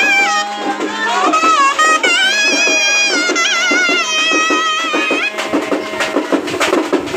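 Traditional festival music: a wavering, ornamented melody held in long notes over a steady drumbeat. About five seconds in the melody stops, leaving drumbeats and crowd noise.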